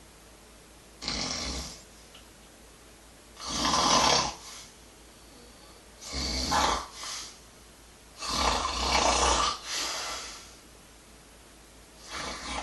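Snoring in a slow, regular rhythm: a rough, noisy snore about every two and a half seconds, each lasting around a second, with quiet between. One near the middle runs longer, about two seconds.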